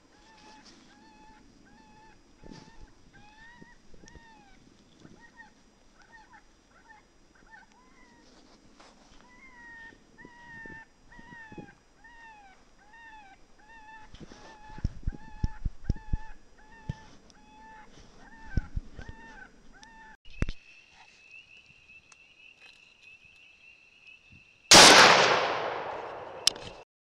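A short squawking call repeats about twice a second, with a few faint clicks, until a cut about two-thirds of the way in. After the cut comes a steady high whine. Near the end a single loud rifle shot cracks and rings away over about two seconds.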